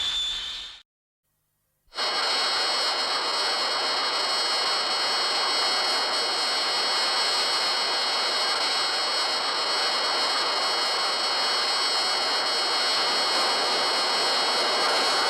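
Mechagodzilla film sound effect: a steady jet-like hiss with several high, even whining tones held over it, starting about two seconds in after a brief silence that follows the tail of the previous effect fading out.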